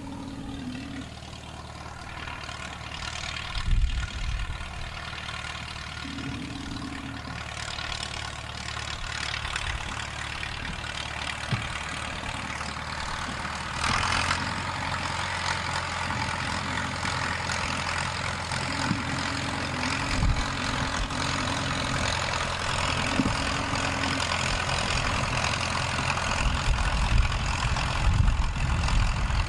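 Leyland 262 Synchro tractor's three-cylinder diesel engine running steadily at low revs while it pulls a land roller across grass, growing louder toward the end.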